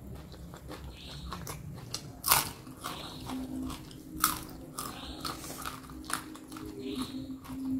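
Close-miked biting and chewing of crunchy food, with sharp crisp crunches, the loudest about two and four seconds in.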